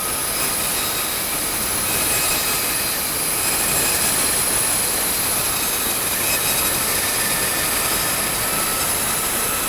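3-horsepower bandsaw resawing a thick board of hard maple: a steady hiss of the blade cutting, over the running saw's even whine.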